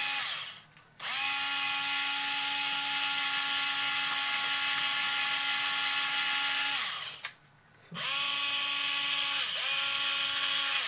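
Small cordless screwdriver's motor whining at a steady pitch as it drives a threaded set screw into a road wheel. It runs in a short burst, then for about six seconds, then twice more briefly near the end.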